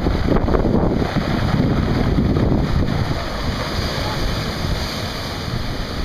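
Ocean surf rolling in and breaking, with wind buffeting the microphone. The surge is heaviest in the first three seconds and eases after that.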